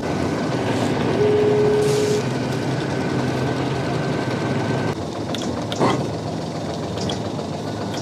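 Sailboat's engine running steadily. Over it are a faint steady whine for the first five seconds, a short steady tone about a second in, and a single sharp knock near six seconds.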